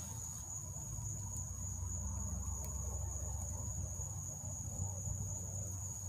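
Night insects, crickets, trilling in one steady high unbroken tone, over a steady low rumble.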